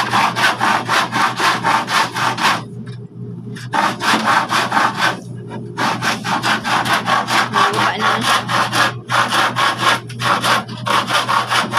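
Handsaw cutting through a painted wooden board in fast back-and-forth strokes, about four or five a second, stopping briefly three times.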